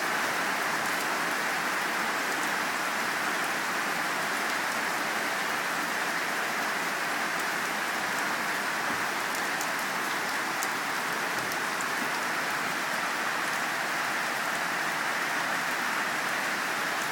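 Steady rain falling: an even, unbroken hiss, with a few sharp drop ticks here and there.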